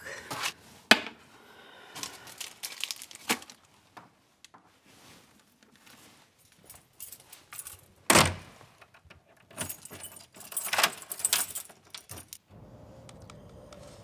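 A bunch of keys jangling and rattling at a door lock for a few seconds towards the end. Before it come scattered clicks and clatter of things being handled, and a heavier knock about eight seconds in.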